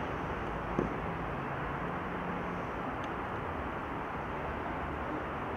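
Steady open-air ambience of a football pitch during a match, an even background noise with no commentary, and a single short thud about a second in.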